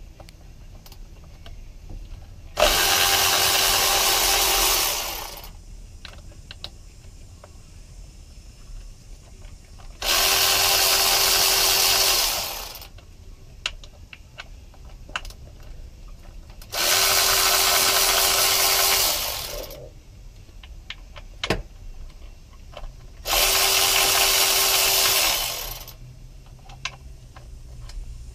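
Cordless drill with a 5 mm Allen bit running four times, about two and a half seconds each, backing out the Allen bolts of a cover. Each run tapers off at its end, and there are light clicks of handling between the runs.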